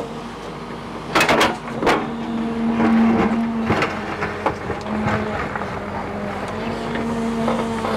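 Hydraulic excavator running with a steady hum as its bucket digs into rubble fill, with clattering scrapes of the bucket teeth on stone and debris about a second in and again near two seconds, and a few lighter knocks later.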